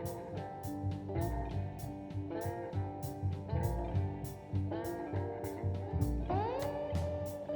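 Background music: a plucked electric guitar melody over a steady drum beat, with one guitar note sliding upward about six seconds in.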